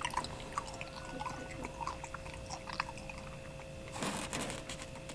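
A person chewing a mouthful of Detroit-style pizza: small, irregular wet mouth clicks and crunches. A faint steady hum sits underneath, and a brief burst of noise comes about four seconds in.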